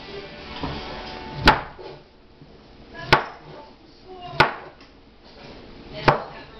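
Knife chopping banana pieces on a cutting board: four sharp chops spaced about one and a half seconds apart.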